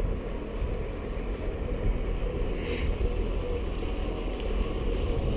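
Steady wind buffeting the microphone, with a brief hiss about two and a half seconds in.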